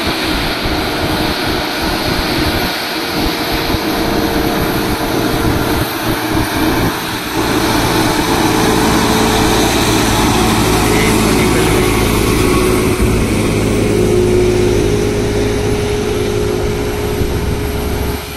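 Tata multi-axle truck's diesel engine labouring in a low gear up a steep hairpin climb, a continuous heavy drone that grows steadier and stronger from about eight seconds in as the truck passes close by.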